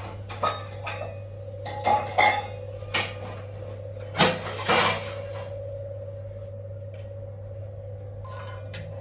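Small earthenware pot knocking and clattering against the metal grate of a gas stove burner as it is set in place over the flame. There are a handful of clinks and knocks in the first five seconds, the loudest near the middle, over a steady low hum.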